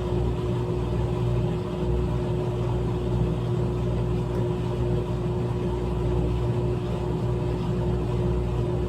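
GE top-load washing machine running mid-cycle: a steady motor hum with one constant tone over it.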